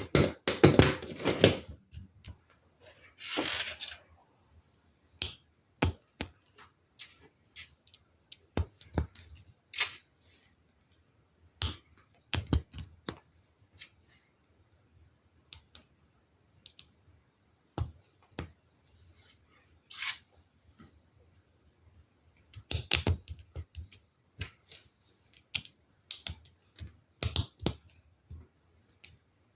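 Plastic LEGO Technic pieces clicking and rattling as they are handled and pressed together: irregular sharp clicks, a dense clatter at the start, a short rustle a few seconds in, and another run of clicks near the end.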